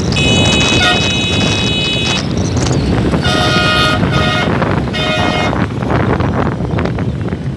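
Vehicle horns honking in traffic over a heavy rumble of wind on the microphone from riding along the road. A long high horn note runs for about the first two seconds. Three short honks follow between about three and five and a half seconds in.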